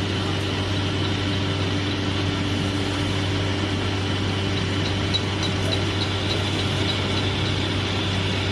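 Single-head edge milling machine running steadily with a constant hum, with a faint quick high ticking over the middle part.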